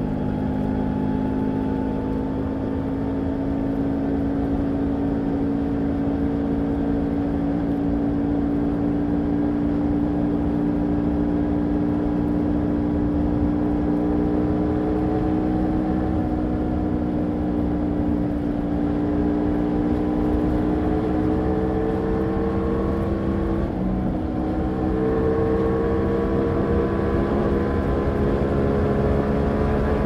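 Ducati Multistrada V4 Rally's 1158 cc V4 engine pulling hard in sixth gear at high motorway speed, its note climbing slowly and steadily as the bike accelerates from about 140 to about 205 km/h. The note breaks briefly about three-quarters of the way through, then resumes, over a constant rush of wind.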